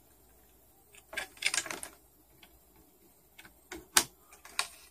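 Light clicks and taps from multimeter test probes and leads being handled on a TV's inverter board: a short cluster about a second in, a few more scattered later, the sharpest click about four seconds in.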